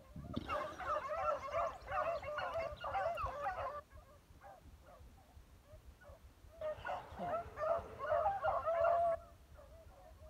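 A pack of beagles baying as they run a rabbit's scent line, many voices overlapping. There are two loud bouts of about three seconds each, with fainter baying between them.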